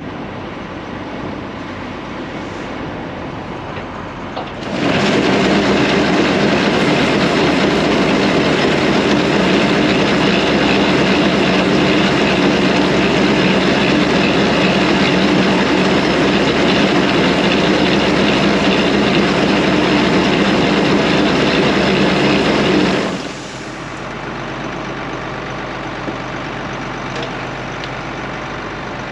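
Tractor engine running steadily. About five seconds in it becomes much louder and stays so for roughly eighteen seconds, then drops back to the lower level.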